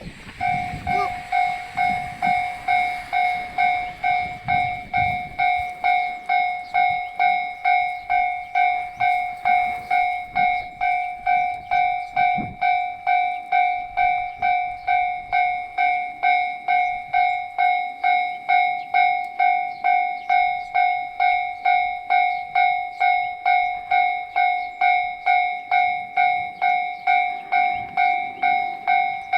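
Electronic warning bell of a Japanese railway level crossing ringing, a steady clanging tone repeated about twice a second; it starts about half a second in and warns that a train is approaching.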